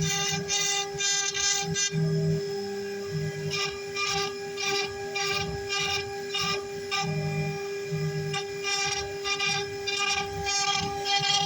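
CNC wood router running: a steady spindle whine, with the stepper motors whining in short bursts as the head moves through its cuts.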